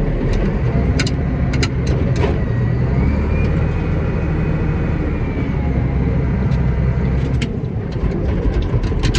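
Tractor engine running steadily under load, heard from inside the cab, with a faint whine that rises and falls through the middle and scattered sharp ticks.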